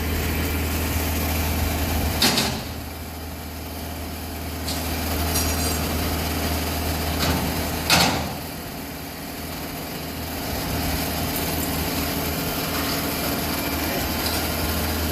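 Vehicle engine idling with a steady low hum, broken by two sharp clanks, one about two seconds in and one near eight seconds.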